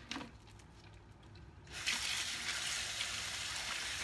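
Kitchen tap water running steadily into a bowl of frozen prawns being rinsed in the sink; the flow starts about two seconds in.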